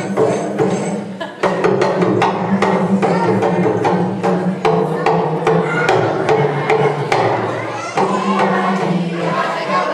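Live African music: sharp wooden percussion strikes at a steady beat over a low voice and hand drums.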